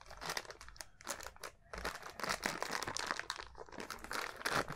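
Plastic being handled: a small plastic bag crinkling, with irregular short clicks and rustles from plastic toy parts.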